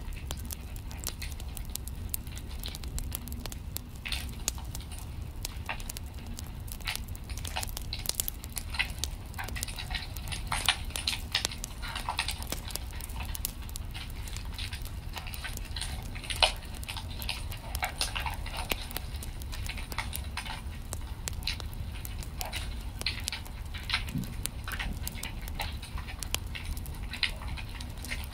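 Wood fire in a fireplace crackling: irregular sharp snaps and pops over a low steady rumble.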